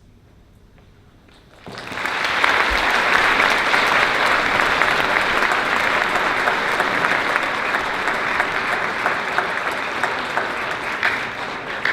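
Large audience clapping, starting suddenly about a second and a half in and holding steady before tapering off near the end.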